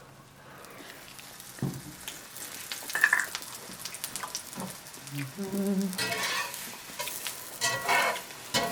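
Food frying in hot oil in a pan, sizzling with scattered sharp crackles and clicks.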